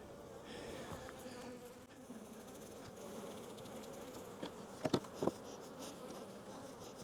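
Honey bees buzzing around an open hive, a faint steady hum. Two short knocks come about five seconds in.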